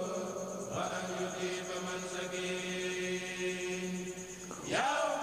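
Background religious chanting: a voice holding long, steady notes, quieter than the narration around it, fading out shortly before the end.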